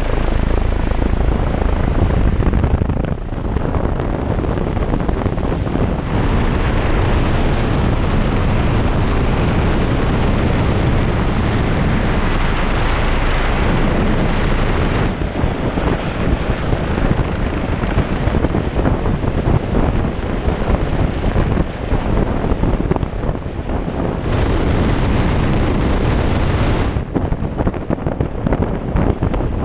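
Helicopter hovering close overhead: loud, steady rotor and engine noise mixed with rotor downwash buffeting the microphone. The sound shifts abruptly a few times.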